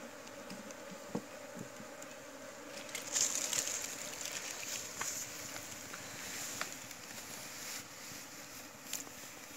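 Asian honey bees from a wild tree-hollow colony buzzing around a wooden hive box. Scratchy rustling and a few sharp clicks of handling come through, loudest about three seconds in.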